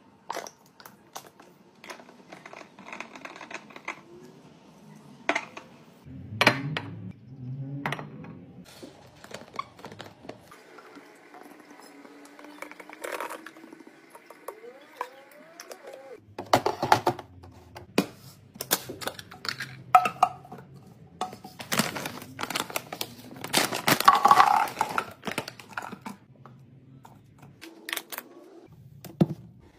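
Plastic bottles, caps and container lids handled on a stone countertop: a run of clicks, taps and knocks, densest about three-quarters of the way through, as dish soap and sauce are decanted into refill bottles.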